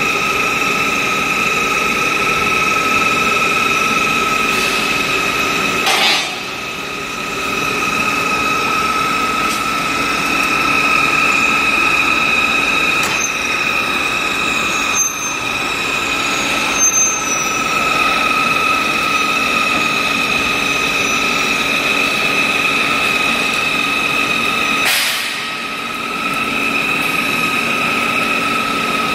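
Steel bar peeling machine line running: steady industrial machine noise with a high whine held throughout. The sound dips briefly twice.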